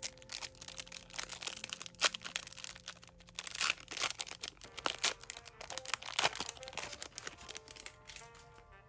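Foil trading-card pack wrapper being crinkled and torn open: a dense run of irregular crackles with a few sharper snaps, over soft background music.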